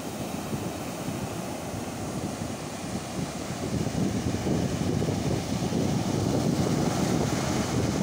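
Ocean surf breaking and washing up a sandy beach, with wind buffeting the microphone; the rush grows louder about halfway through.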